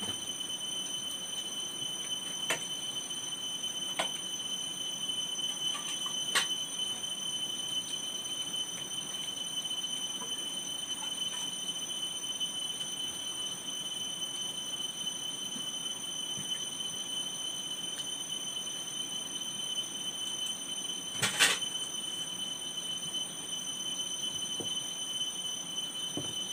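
A steady high-pitched whine, with a few light clicks and taps of metal plates on a wooden table as food is eaten by hand; the loudest is a short clatter about 21 seconds in.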